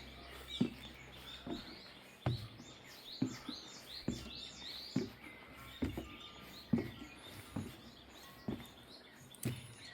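Footsteps on stairs, a steady walking pace of about one step a second, with small birds chirping throughout.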